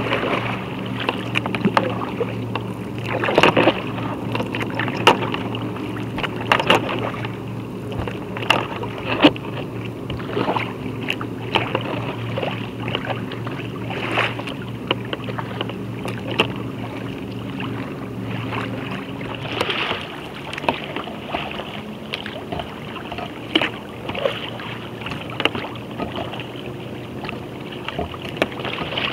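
Sea kayak (Wilderness Systems Tsunami 165) being paddled through choppy water: paddle blades splash and small waves slap the hull every second or two. A steady low hum sits underneath and stops about two-thirds of the way through.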